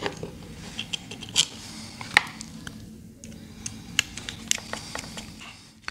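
Light scattered clicks and taps as a small clamp screw is started into a plastic stove plug and turned with a screwdriver, with a few sharper clicks spread through, over a faint low hum.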